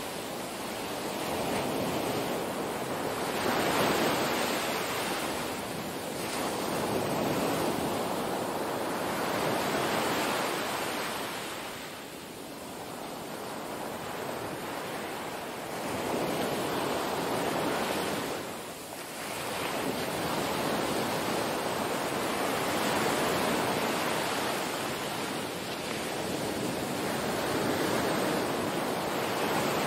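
Small waves washing onto a sandy beach, the surf swelling and easing every few seconds.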